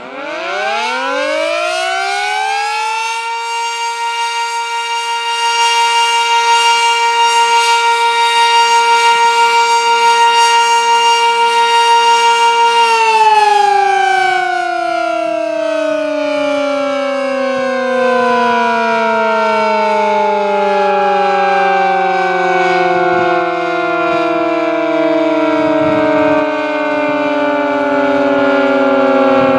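Village civil-defence siren winding up over about three seconds to one steady high tone, which grows louder and wavers slightly. About thirteen seconds in it is cut off and winds down in a long, slowly falling glide.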